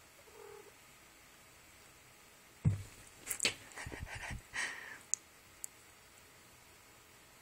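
A sudden thump, then a couple of seconds of rustling and crinkling as a cat noses and paws into paper tucked in a corner of a blanket, ending with two short sharp clicks.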